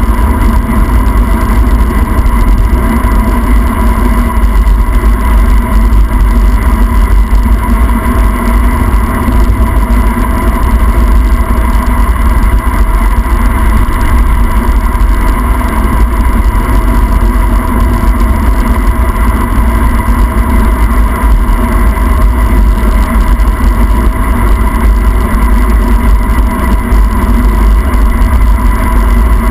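Loud, steady wind rush buffeting the microphone of a handlebar-mounted camera on a fast bicycle descent.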